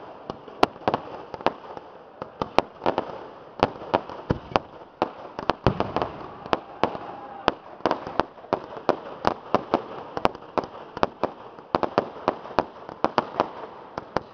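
Fireworks display: a rapid, unbroken run of sharp bangs and cracks, about three or four a second, over a constant hiss of launching and burning fireworks.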